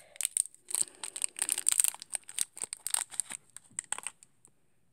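Thin plastic wrapper of a small eraser crinkling and tearing as it is pulled open by hand: a rapid run of crackles that stops about four seconds in.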